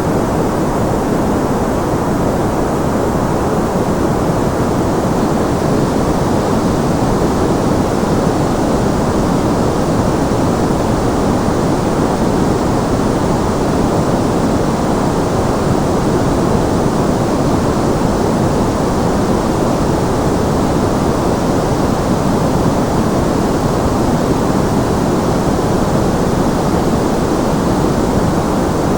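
Steady generated white noise for tinnitus masking: an even, unchanging rush without any pitch or rhythm. It is weighted toward the low and middle range, so it sounds deeper than a thin hiss.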